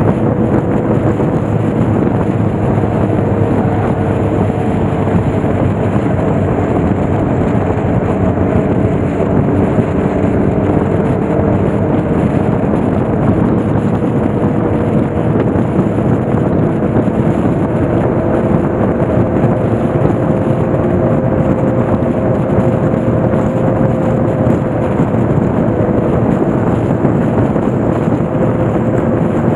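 Motorcycle engine running steadily while riding, its note drifting slightly lower and back up, under a constant rush of wind and road noise on the microphone.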